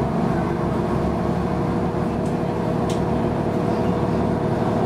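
Cabin sound of a Mercedes-Benz Citaro G articulated bus running, its OM 457 hLA six-cylinder diesel and drivetrain giving a steady drone with a steady whine over it, and a couple of light rattles a little past the middle.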